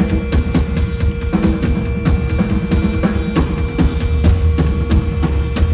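Live band music: a drum kit beats out dense, irregular strikes over a steady held drone tone and heavy bass from the keyboards and electronics.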